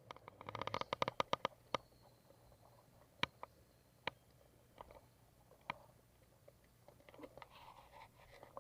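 A quick run of about a dozen sharp, ringing clicks in the first two seconds, then a few single clicks spaced a second or so apart.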